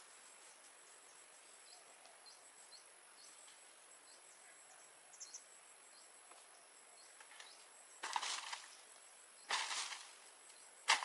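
Long bamboo pole jabbing up into a coconut palm's crown to knock down young coconuts: three loud rustling, cracking bursts of palm fronds about a second and a half apart near the end. Before that, a quiet outdoor background with faint short chirps.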